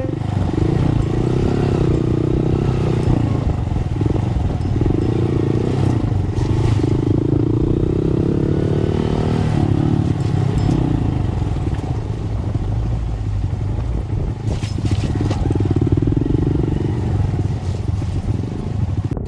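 Motorcycle engine running while being ridden off-road, its pitch rising and falling with the throttle, with a few sharp clatters.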